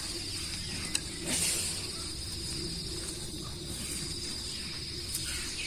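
Insects chirring in a steady, high, continuous drone, over a low rumble of microphone and handling noise, with a brief rustle about a second in.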